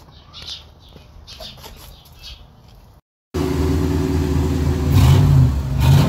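Chevrolet Camaro RS engine running loudly with a steady low idle, revved briefly twice, once about two-thirds of the way in and again near the end. Before this, after a short sudden cut, there is a quieter stretch with faint chirping.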